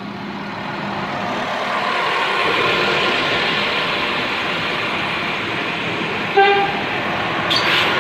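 Serbian Railways series 711 diesel multiple unit running past at close range, its engine and wheel noise growing louder as it draws alongside. A short horn toot sounds about six seconds in, and there is a brief clank near the end.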